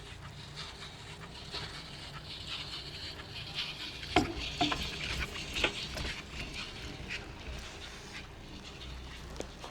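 Chairlift ride: a steady low rumble, with a run of sharp clicks and rattling knocks from about four seconds in, loudest around four to six seconds.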